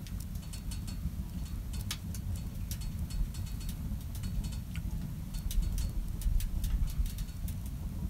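Wood fire burning in a small camp wood stove: irregular sharp crackles and pops over a steady low rumble.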